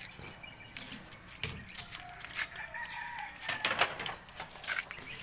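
Birds calling, with scattered clicks and knocks.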